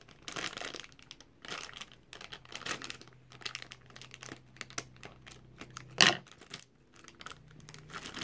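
A thin clear plastic bag crinkling and crackling as it is handled and cut open with small scissors, with a louder crackle about six seconds in.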